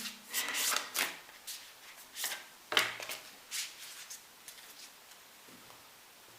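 Oracle cards being shuffled and handled: a string of short, sharp card snaps and rustles that thin out after about halfway, leaving only faint room tone.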